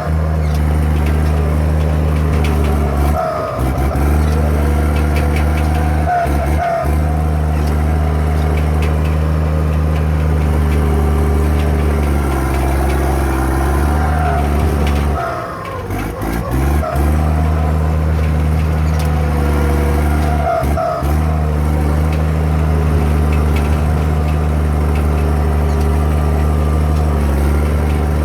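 FiatAllis FD9 crawler tractor's diesel engine running steadily under load. The engine sound dips briefly a few times, most deeply about two thirds of the way through.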